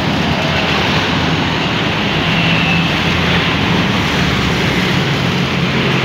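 Small engine driving a red piston air compressor, running steadily with a low hum, under a continuous hiss of air and soap foam spraying from a snow-foam wash lance.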